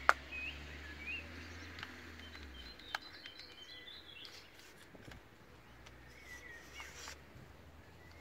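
Faint bird chirps, with sharp clicks of the plastic grille parts being handled: a loud one at the very start and a smaller one about three seconds in.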